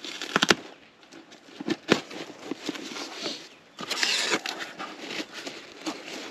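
Hands rummaging through a shipping box filled with packing peanuts: rustling and crackling with sharp clicks, and a louder burst of rustling about four seconds in.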